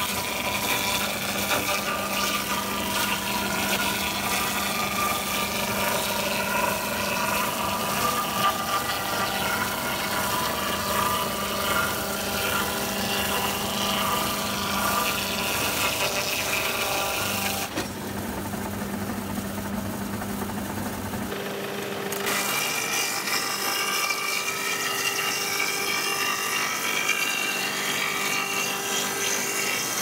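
Electric log-rounding machine running, its rotary cutter head shaving bark and wood from a pole as it is fed through: a steady motor hum with whining tones and the rasp of cutting. The cutting noise drops away for a few seconds about two-thirds of the way in, then returns with a changed pitch.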